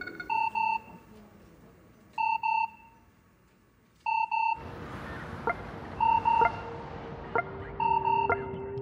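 Electronic alert beeping from a satellite control console: short double beeps repeating about every two seconds, signalling a warning. About halfway a steady hiss with faint ticks comes in, and a low hum starts near the end.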